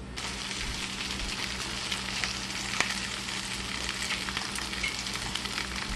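Floured beef rump roast searing in a hot braiser: a steady sizzle with scattered crackles.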